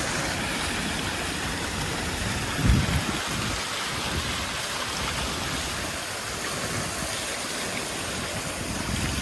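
Large water fountain running, its water splashing and falling in a steady rush. A brief low thump comes about three seconds in.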